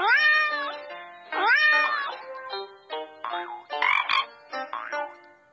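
Cartoon animal-call sound effects over cheerful children's music: two drawn-out calls that rise and then fall in pitch, about a second and a half apart, and a shorter call about four seconds in, with short plinking music notes around them.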